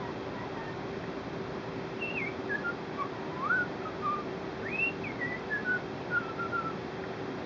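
Lineolated parakeet whistling a string of short notes, some gliding up and some down in pitch, ending in a run of falling notes.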